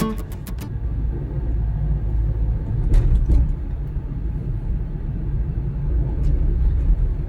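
Steady low rumble of a car on the move, heard from inside the cabin, with a couple of faint clicks. The last notes of guitar music fade out in the first second.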